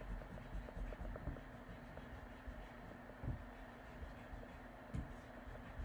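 Permanent marker scratching faintly over an outline on paper in short strokes, with a couple of light knocks.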